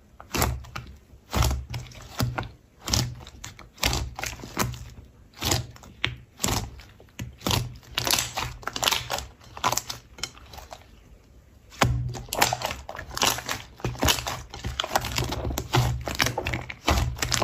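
Slime being squeezed and poked, giving irregular runs of clicking and crackling pops, with a short lull about ten seconds in and a denser stretch near the end.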